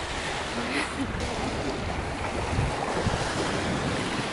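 Small Lake Michigan waves washing steadily onto the beach, with wind rumbling on the microphone.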